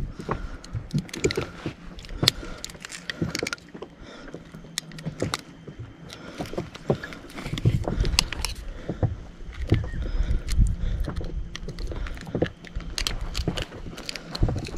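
Irregular clicks, knocks and rattles of fishing gear being handled aboard a small inflatable boat, with heavier thumps against the boat from about halfway through.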